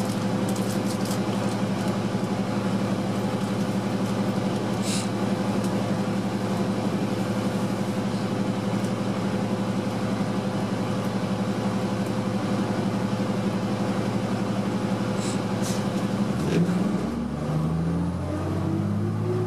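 Cummins ISL diesel engine of an Orion VII transit bus idling steadily, heard from inside the cabin, with two short hisses along the way. About sixteen seconds in the engine revs up as the bus pulls away, its pitch climbing and then stepping down as the Allison automatic shifts gear.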